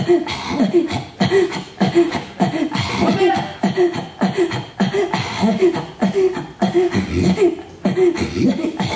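Inuit throat singing (katajjaq): rhythmic, breathy vocal pulses that alternate between a low and a higher pitch, about two a second, without a break.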